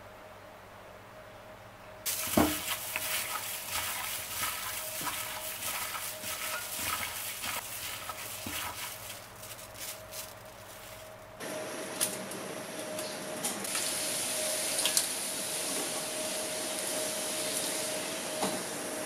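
Pork ribs being mixed by hand with their marinade in a glass bowl: wet squelching and plastic-glove crinkling with many small clicks. About eleven seconds in it changes abruptly to the steady sizzling hiss of oil heating in a pan on a gas stove, with a faint steady hum underneath.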